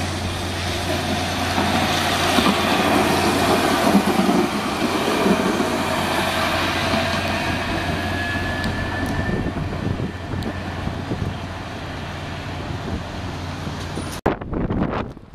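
Electric light-rail tram passing close on wet track and running away round a curve: a steady electric hum under a broad hiss, loudest a few seconds in and easing off as it moves away.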